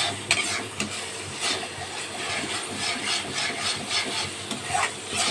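Spatula scraping and stirring a thick masala paste frying in oil in a stainless steel kadai: repeated scraping strokes, about two a second, over a faint sizzle. The masala has been fried until the oil separates.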